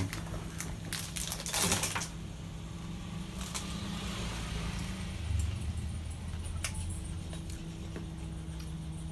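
Light, scattered clicks of wooden chopsticks against a plate, with a brief louder scraping noise about a second and a half in, over a steady low hum.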